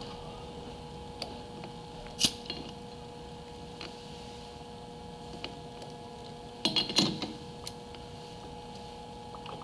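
Pliers clinking against the cut-open metal shell of a brake-pressure accumulator held in a lathe chuck: one sharp clink about two seconds in and a quick run of clinks around seven seconds, over a steady hum.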